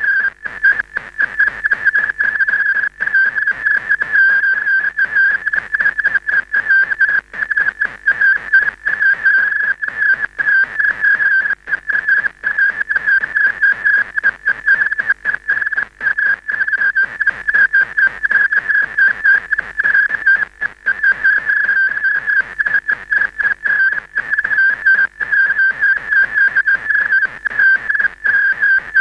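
A steady, high electronic whistle with fainter overtones, broken all through by rapid, irregular crackly dropouts: signal noise from the blank end of a videotape after the recording stops.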